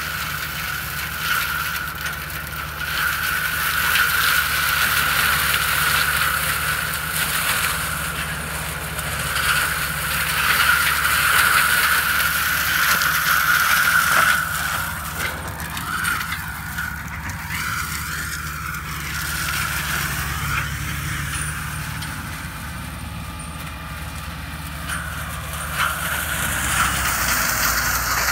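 FAE forestry mulcher on a Fendt 936 tractor shredding brush: a steady high rotor whine over the low drone of the tractor's engine, the whine easing somewhat about halfway through.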